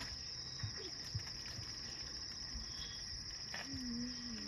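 Insects in the savanna grass giving a continuous, cricket-like high-pitched trill. A couple of soft knocks come about a second in.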